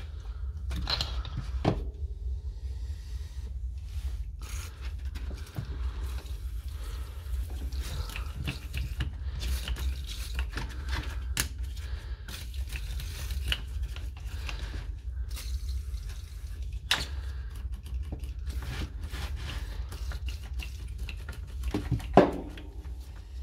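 Parts of a disassembled Milwaukee M18 Fuel impact wrench being handled and cleaned with aerosol contact cleaner: scattered clicks, scrapes and light knocks of plastic and metal, with a sharp knock a little before the end.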